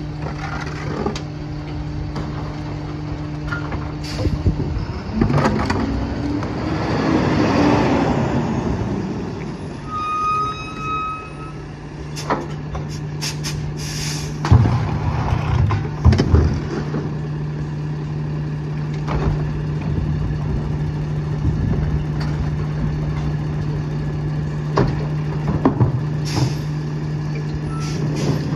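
Freightliner M2 garbage truck with a NewWay Viper rear-loader body running with a steady diesel hum; about five seconds in the engine revs up and back down. Plastic recycling bins knock against the rear hopper several times as they are emptied.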